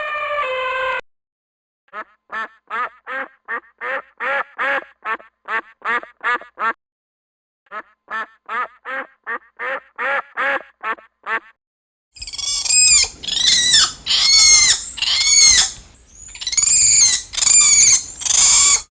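A duck quacking: two runs of short, quick quacks, about three a second. About twelve seconds in, a louder animal call follows, a series of high, arching calls.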